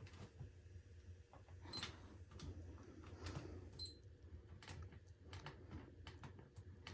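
Faint, scattered clicks of remote-control buttons being pressed, about half a dozen over several seconds; two of the presses, around two and four seconds in, come with a brief high beep.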